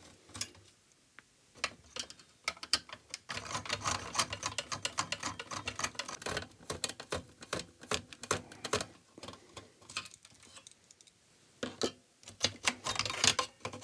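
Screws being undone from a power supply circuit board in its metal chassis: a long run of small irregular clicks and rattles, busiest in the middle and again near the end.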